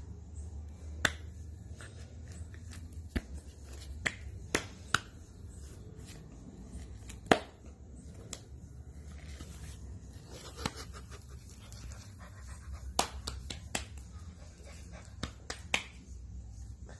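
Golden retriever puppy mouthing a person's fingers: about a dozen sharp, irregular clicks of its teeth and jaws, the loudest about seven seconds in, over a low steady hum.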